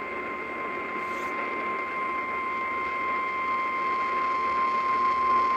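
NOAA Weather Radio warning alarm tone: one steady high tone at about 1 kHz over a background hiss of radio static, growing slightly louder. It signals that a warning broadcast is about to follow.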